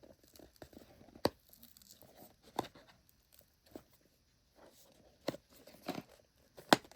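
Packaging being handled while someone works at getting a box open: faint rustling and scraping, with a sharp click or tap every second or so.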